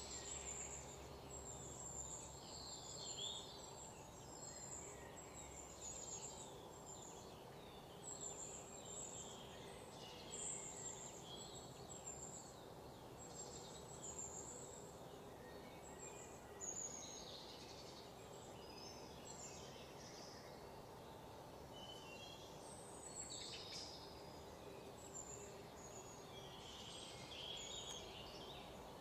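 Faint outdoor ambience of birds chirping: many short, high calls scattered throughout, over a steady low background hum.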